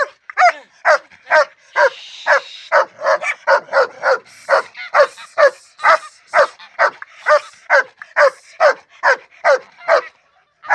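A dog barking over and over in an even rhythm, about two short high-pitched barks a second, each dropping in pitch. The barking stops shortly before the end.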